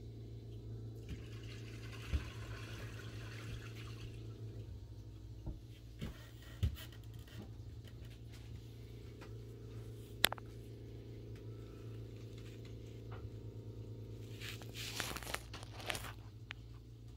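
Handling noise of trading cards in plastic sleeve pages: scattered light clicks, with a soft rustle about a second in and another near the end, over a steady low hum.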